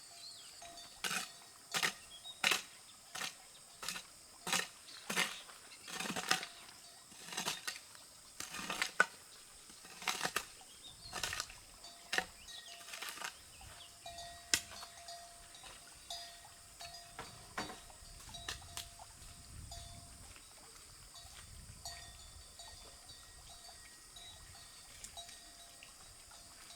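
A quick run of sharp knocks, about one and a half a second, that thins out and fades after about thirteen seconds, over a faint steady ringing tone.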